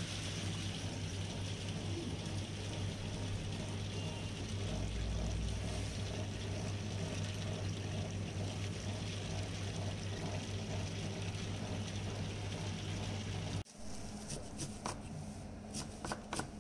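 Electric table-top wet grinder running steadily, its roller stone turning through soaked peanuts and dal while water is poured into the drum, over a steady motor hum. About fourteen seconds in the grinder sound cuts off abruptly, and a run of sharp knocks follows.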